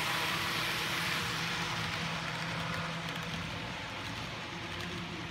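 N scale model train of Atlas 33,000-gallon tank cars rolling past on the track: a steady hiss of small wheels on rail over a low steady hum, easing off a little after about two seconds as the cars move away.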